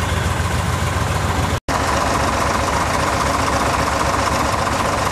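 Motor vehicle engine running steadily, heard from on board. It cuts out for an instant about a second and a half in, then continues as a steady run with a higher hum over it.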